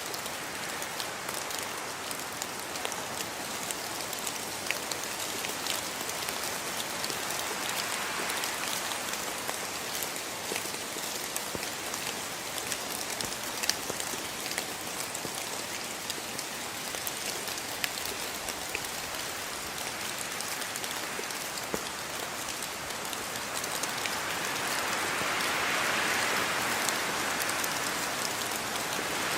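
Steady rainfall with many individual drops pattering on a surface, swelling somewhat louder in the last few seconds.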